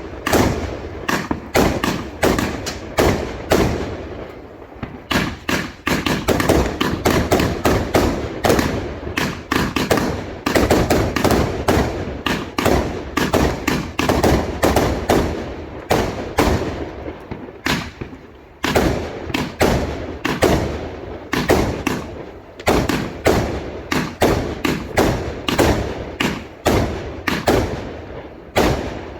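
Rapid barrage of firework explosions, several bangs a second, with short lulls about four seconds in and again around eighteen seconds.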